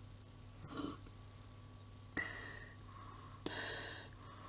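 Three breaths through a gas mask, about a second and a half apart. Each is a short rush of air, and two of them carry a steady high tone.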